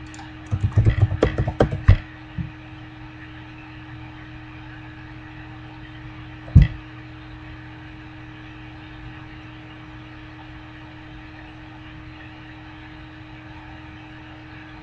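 Computer keyboard being typed on, a quick run of key clicks for about two seconds, then a single sharp click about six and a half seconds in, over a steady low hum.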